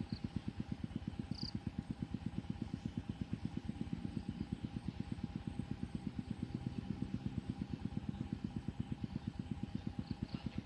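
A small engine running steadily at idle, an even throb of about eight beats a second.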